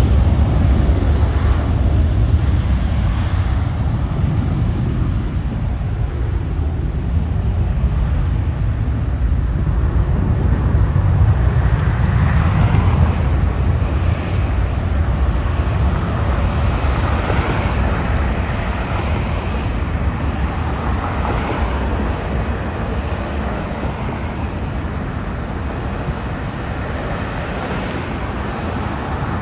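Jet airliner engine noise, a continuous low rumble whose higher rushing sound swells through the middle and eases slightly toward the end, with wind buffeting the microphone.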